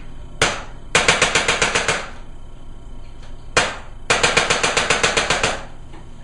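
Electronic chiropractic adjusting instrument (an Impulse) delivering thrusts twice. Each time there is one sharp click, then a rapid run of about a dozen clicks lasting under a second.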